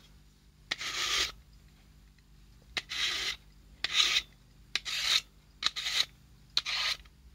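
Steel bayonet blade drawn through a handheld pull-through knife sharpener: six short scraping strokes, about one a second.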